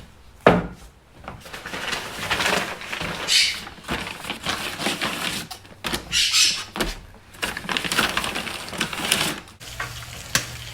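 Kitchen handling noises: irregular knocks and clicks, one sharp click about half a second in, with several short bursts of hiss.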